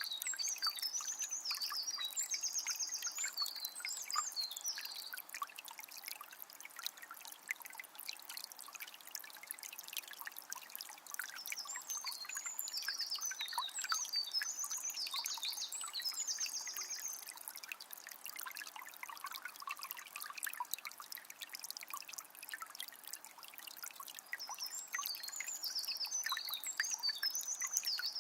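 Small spring's water trickling and splashing steadily. A songbird sings a high, rapid phrase three times, about twelve seconds apart.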